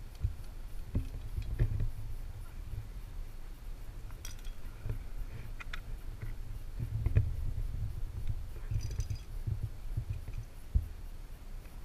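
Scattered knocks and clinks of firefighting gear being handled, a hose and a portable ground monitor, over a low continuous rumble.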